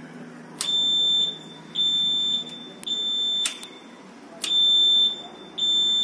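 Reverse (backup) alarm on a small compaction roller being tested from a dashboard push-button, giving five high-pitched beeps about a second apart, with a slightly longer gap after the third.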